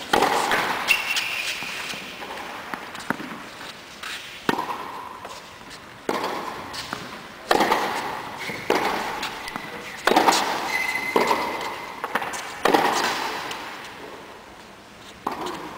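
Tennis rally on an indoor court: sharp racket strikes and ball bounces about every one to one and a half seconds, each ringing on in the reverberant hall, with a few short high squeaks between them.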